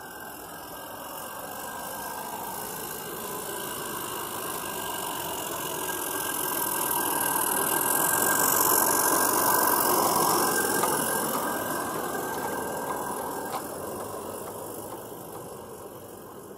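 Regner Konrad G-scale live steam locomotive and open wagons passing on garden railway track: steam hissing and wheels running on the rails, growing louder to a peak about halfway through, then fading away.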